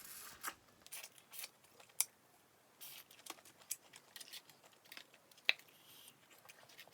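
Close-up eating sounds from a seafood boil: irregular sharp clicks and crackles from handling and eating the food.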